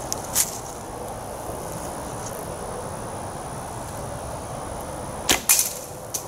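Traditional bow shots: a sharp snap of the released string shortly after the start. Near the end comes another string release, followed a fraction of a second later by a louder clatter as the arrow strikes the clay pigeon target.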